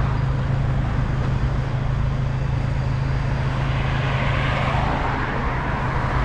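Road traffic on a highway: cars passing close by, with tyre and engine noise that swells as one goes past about four seconds in, over a steady low hum.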